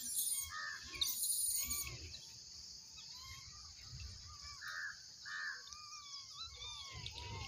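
Birds chirping: many short, high calls, a few a second, over a steady high-pitched hiss.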